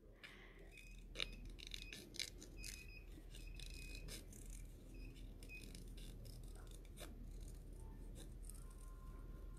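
Small craft scissors cutting a spiral out of paper: a run of faint, irregular snips.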